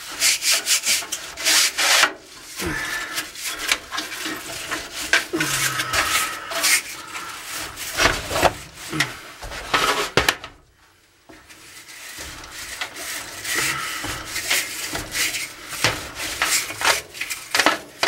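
Stiff-bristled brush scrubbing the dirty fins of an air-handler A-coil (evaporator coil) in quick, repeated scratchy strokes, with a pause of about a second around the middle.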